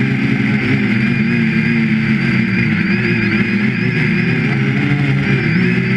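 3DR Iris quadcopter's electric motors and propellers whirring in flight, heard from the camera on board, several steady pitches wavering slightly as the motor speeds adjust. The sound starts abruptly at the very beginning and holds an even level.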